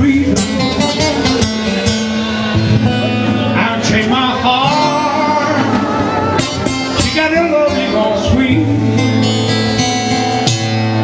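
Guitar playing, with a man singing along into a microphone.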